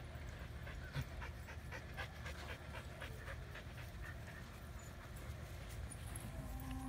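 A dog panting close by: a run of quick, even breaths, about four a second.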